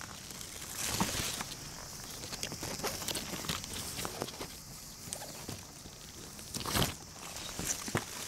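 Myoga (Japanese ginger) leaves rustling and brushing as they are pushed aside by hand, with scattered crackles and two louder swishes, about a second in and near seven seconds.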